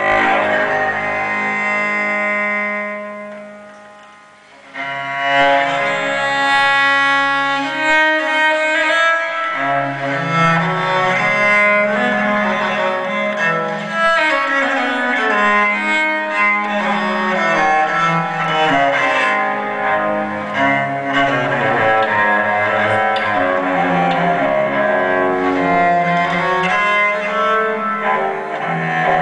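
Cello-led bowed string music played through a homemade double-cone loudspeaker. One passage fades out about three seconds in, and another begins about a second later.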